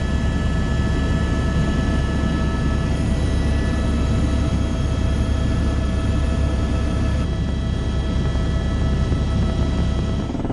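Helicopter cabin noise in flight: the turbine engine and rotor running steadily, a loud low rumble with a steady whine over it.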